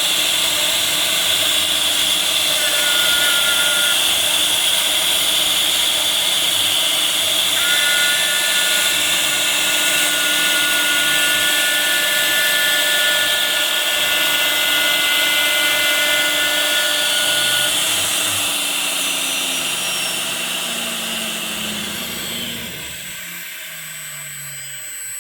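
4th-axis CNC router spindle running at a steady high whine while cutting a workpiece on the rotary axis, with extra steady tones coming and going. From about 18 seconds in, a low tone falls in pitch and the sound fades as the machine winds down.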